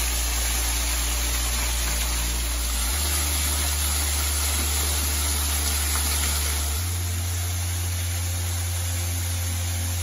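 Steady rush of water falling over rock at a tiered cascade waterfall. Underneath, low sustained notes of ambient background music shift pitch every few seconds.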